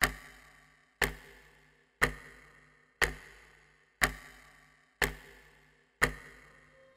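Clock-like ticking: a sharp tick once a second, seven in all, each with a low thud beneath it and a short ringing decay.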